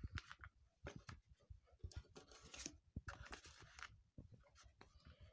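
Faint handling noise of an open plastic Blu-ray case: scattered light clicks and taps, with a few short rustles of a paper insert sliding inside it.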